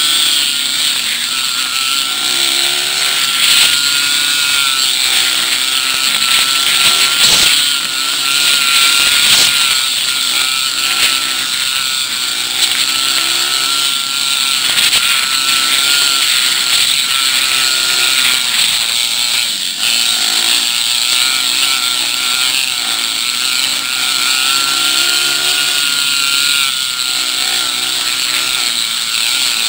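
Dirt bike engines running on a trail ride, a continuous buzz whose pitch rises and falls every second or two as the throttle opens and closes.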